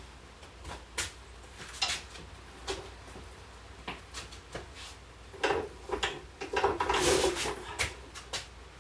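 Scattered metal knocks and clanks, then from about five seconds in a couple of seconds of louder clattering and scraping as a stripped car chassis is pushed and shifted on its rollers.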